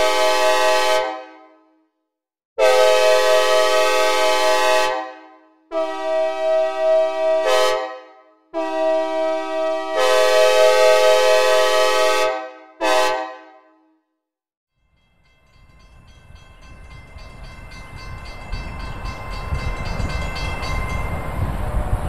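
Synthesizer recreation of a Nathan K5LA "Big Bore" five-chime train horn with reverb: a series of long and short blasts of the same chord, each ending in a reverb tail, over the first thirteen seconds or so. After a second's silence, a rumble of an approaching train builds and rises, with faint horn tones underneath.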